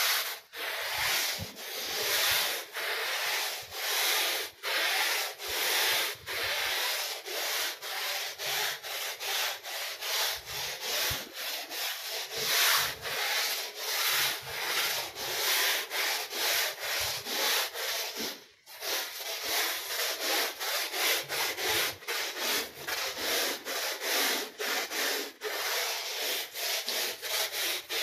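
Long-handled stiff-bristle push brush scrubbing a wet, soap-foamed rug in quick back-and-forth strokes, about two a second, with one short break about two-thirds of the way in.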